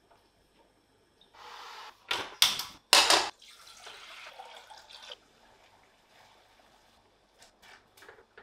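A few loud clatters about two seconds in, then water poured from a glass jug into a stainless steel saucepan, splashing steadily for about two seconds. A few faint clicks near the end.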